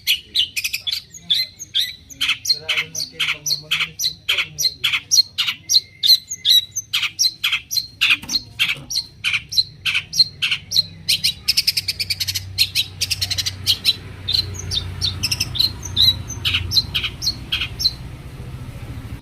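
Long-tailed shrike giving a rapid series of harsh, chattering calls, about three a second, with a denser buzzy trill partway through. The calls stop shortly before the end, leaving a low hum.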